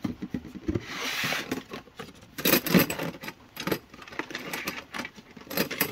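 Small metal parts clinking and rattling as valve spring retainers are picked out of their container, with a short rustle about a second in and a cluster of sharper clinks around the middle and again near the end.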